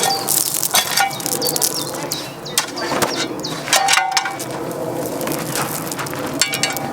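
Scraping and clinking of a hand trowel working through gravelly soil, with irregular sharp knocks and rasps, as a plant is dug up and lifted out of an alpine bed.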